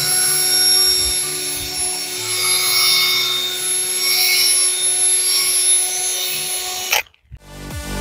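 Background music with steady sustained tones and shifting bass notes, which cuts out about seven seconds in; a new electronic dance track with a steady beat starts near the end.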